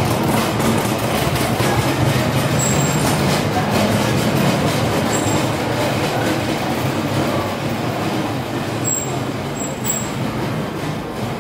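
A train running: a steady, loud rumble with faint regular clicking and a few short high squeaks.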